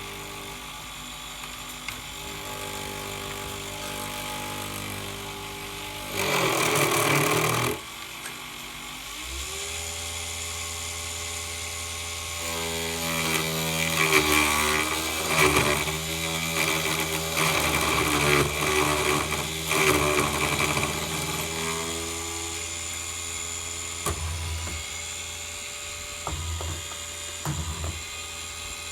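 Desktop milling machine's motor running with a steady hum. It has a brief loud burst about six seconds in and speeds up with a rising pitch shortly after. It then runs louder and unevenly for several seconds before settling back.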